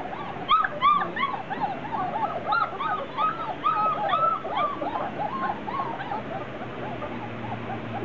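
Several Hungarian Vizsla puppies whining and yipping, many short high squeals that rise and fall in pitch and overlap one another, busiest in the first half and thinning out toward the end.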